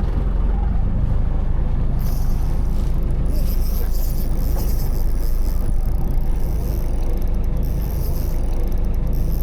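Fishing boat under way: a steady, loud low rumble of its engine with wind and water noise.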